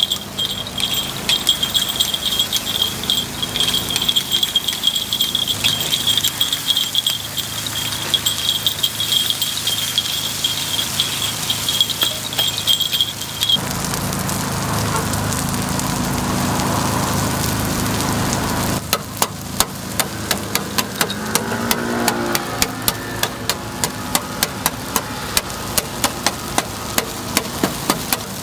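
Metal tools clicking and tapping against a cast-iron takoyaki griddle while the balls cook, under a steady high-pitched whine that cuts off about halfway through. A stretch of sizzling-like hiss follows, then sharp taps at about two a second near the end.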